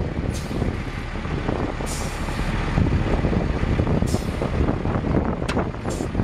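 A 1993 International 4900 dump truck's DT466 7.6-litre inline-six diesel running steadily, with several short hisses over the engine sound.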